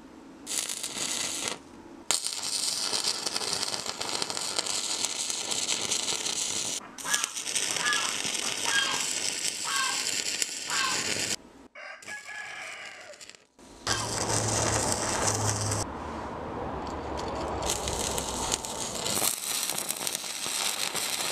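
Stick welding arc burning on iron, a steady crackling sizzle that strikes up about two seconds in, drops out for about two seconds past the middle, then strikes up again. A rooster crows in the background near the middle.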